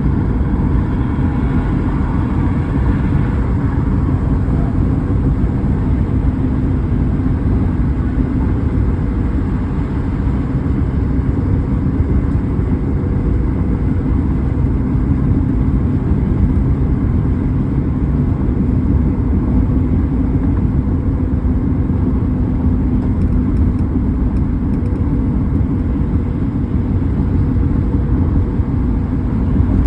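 A car driving at a steady pace: a constant low rumble of engine and tyre noise. The sound is a little brighter in the first few seconds.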